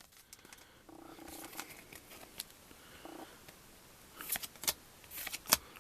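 Quiet handling of trading cards from a booster pack: a few light clicks and taps, with a couple of short low hums from a voice.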